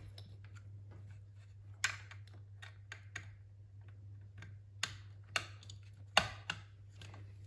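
Irregular clicks and taps of hands handling the plastic housing of a Soma Smart Shades 3 blind motor and pushing the solar panel's charging cable plug into its port, the sharpest click about six seconds in. A faint steady low hum sits underneath.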